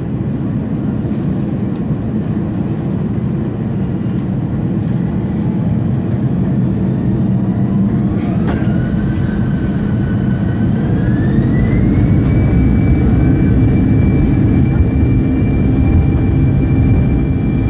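Airbus A320-family airliner's turbofan engines heard from inside the cabin, a steady rumble with a whine. About halfway through the whine rises in pitch in two steps and then holds high, while the rumble slowly grows louder: the engines spooling up as thrust is added for takeoff.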